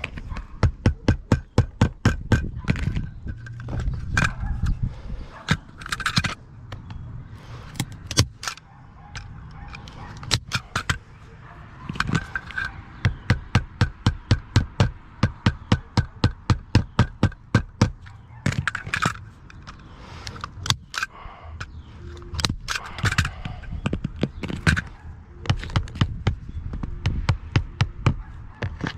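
A hammer tapping on the roof in quick runs of sharp knocks, about four to five a second, with short pauses between the runs: roof nails or staples being driven in.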